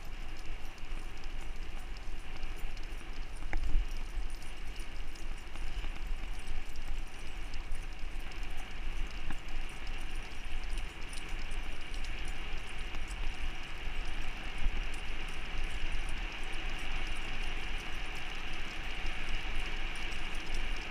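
Two Siberian huskies running in harness on asphalt, their paws and claws clicking quickly on the pavement, over a steady low rumble of wind and the wheels of the rig they pull.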